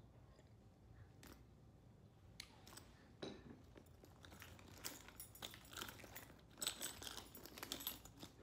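Faint, irregular clicks and rustling of small objects being handled, sparse at first and busier in the last few seconds.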